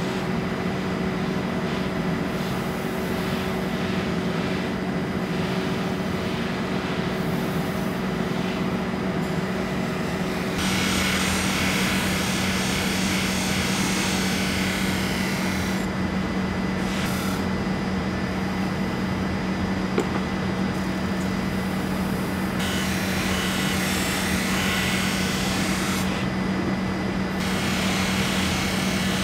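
Motor-driven grinding wheel running with a steady hum while a steel kitchen knife blade is held against it. The scraping grinding hiss swells into harsher stretches several times, from about a third of the way in, as the blade is pressed harder onto the wheel.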